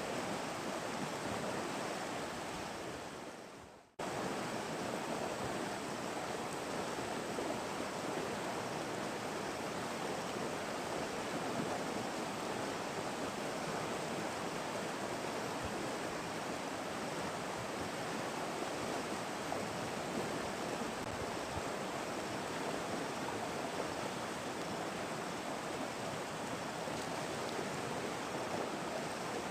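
Steady rushing of flowing river water. It fades out and breaks off about four seconds in, then comes back abruptly.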